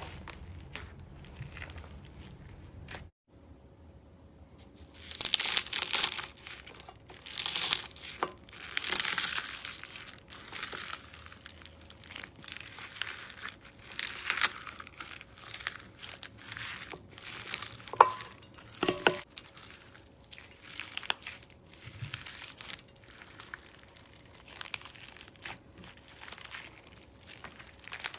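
Crunchy slime being squeezed and pressed by hand, crackling and crunching in irregular bursts, the loudest squeezes coming from about five seconds in.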